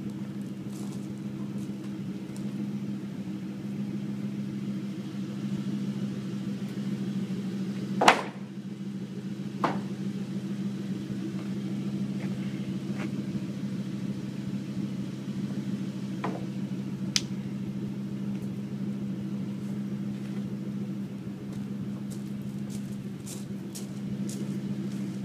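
A steady low mechanical hum, with a few sharp wooden knocks as boards are handled on a utility trailer; the loudest knock comes about eight seconds in.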